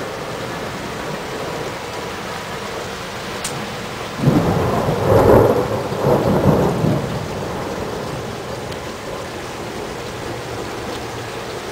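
Steady rain falling, with a rolling rumble of thunder that swells about four seconds in and dies away after about three seconds.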